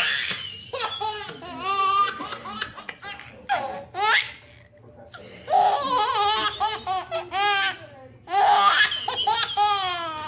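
A baby laughing hard in several bursts with short pauses between them, each burst a run of high-pitched, wavering laughs.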